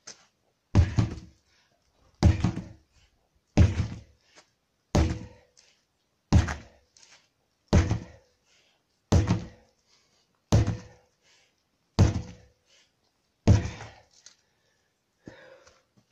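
Sledgehammer striking a stack of rubber tyres: ten heavy, dull thuds in a steady rhythm, about one every second and a half.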